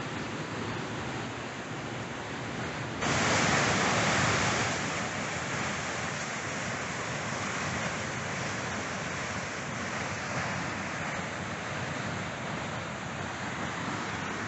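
Steady rush of water from the Aconco cascades and their river. The sound turns abruptly louder about three seconds in and eases back after a couple of seconds.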